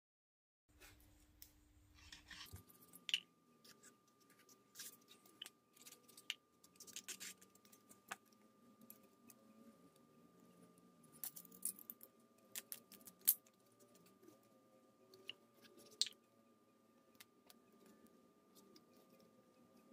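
Faint scattered clicks, scrapes and rustles of black foam pieces being cut with a utility knife, handled and pressed together.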